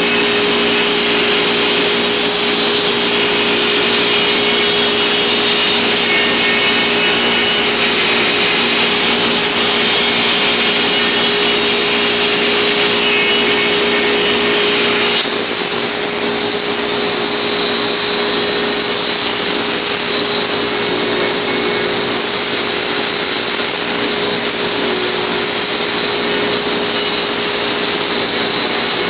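FLA-100 CNC router running its spindle and cutting a sheet of solid wood, with a dust-extraction vacuum running steadily through the hose on the cutting head. A high steady whine joins in about halfway through.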